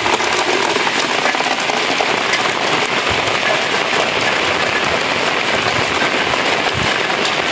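Steady rain falling on wet ground and surfaces: a dense, even hiss of many small drop impacts.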